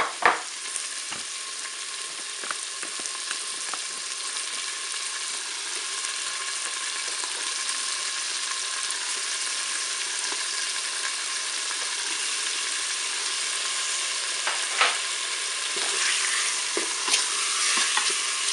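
Pork tenderloin medallions sizzling in hot butter with shallot and parsley in the Cookeo multicooker's pot on its browning setting, a steady high hiss growing a little louder. A sharp knock comes right at the start, and a few light knocks come later, mostly near the end.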